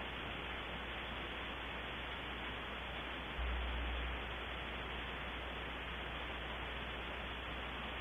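Steady static hiss from a wildlife webcam's microphone, with a brief low rumble about three and a half seconds in.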